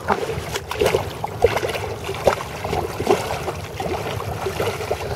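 Water splashing and sloshing in irregular short splashes.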